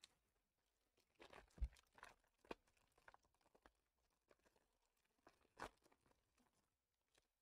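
Faint crinkling and tearing of trading-card pack wrappers being handled and opened, with a soft thump about a second and a half in and another crinkle about five and a half seconds in.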